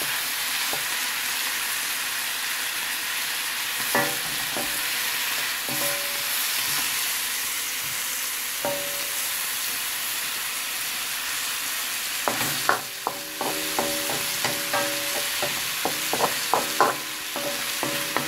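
Chicken pieces and chopped red onion sizzling as they brown in a metal pan, with a wooden spoon knocking and scraping against the pan so that it rings. The knocks come a few times at first, then in a quick run over the last six seconds.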